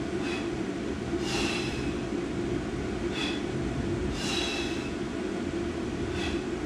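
A man breathing audibly in a regular rhythm, a short breath followed by a longer one about every three seconds, over a steady low hum in the room.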